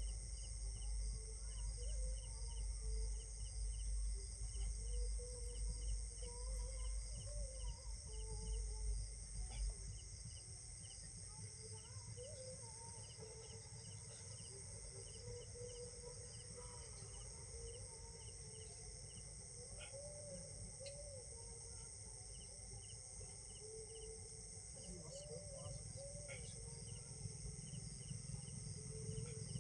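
Outdoor ambience of insects: a steady high drone with a regular chirping pulse of about two to three chirps a second, and birds calling on and off. A low rumble underneath stops about ten seconds in.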